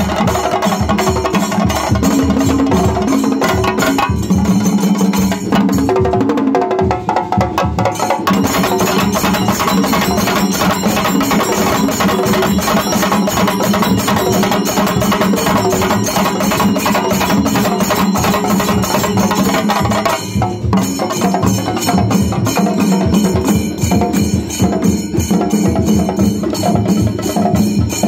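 A group of chenda drums beaten with sticks: a loud, dense, fast continuous rhythm of many drummers playing together.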